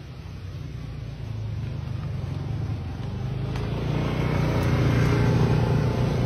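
Motorbike engine approaching, a steady low hum that grows louder throughout.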